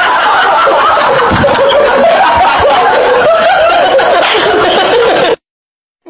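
Loud laughter from several voices at once, cut off suddenly about five seconds in.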